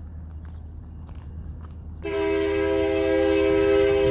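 An approaching diesel locomotive's low engine rumble, then about halfway through a loud, steady air horn blast starts suddenly and holds: the train sounding its horn for the grade crossing.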